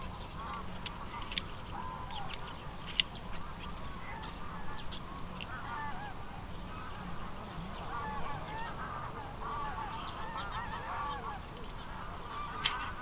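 A flock of geese calling, many overlapping honks through the whole stretch, with a few sharp clicks standing out briefly.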